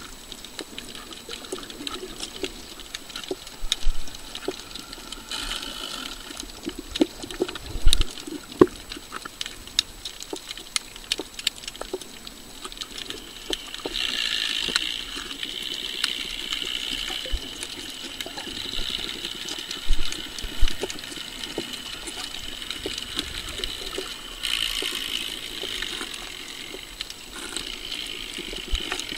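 Water heard underwater over a coral reef: a constant crackle of small clicks with a few louder knocks, and two stretches of hissing, about halfway through and near the end.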